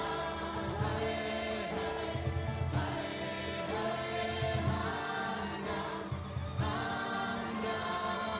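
Group of voices chanting a mantra in sustained, melodic phrases over a steady bass accompaniment.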